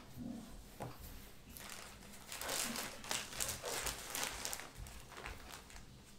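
Thin plastic bag of cotton balls crinkling as a hand rummages in it and pulls cotton balls out: a run of crackly rustles lasting about three seconds, starting about a second and a half in.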